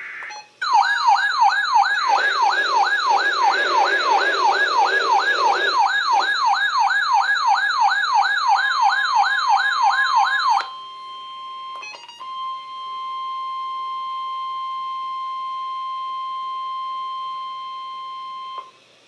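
Electronic emergency-alert tones. An alert siren sweeps up and down about three times a second for roughly ten seconds, then stops. After a couple of clicks, the steady NOAA Weather Radio 1050 Hz warning alarm tone sounds for about six seconds, signalling that a warning is about to be broadcast.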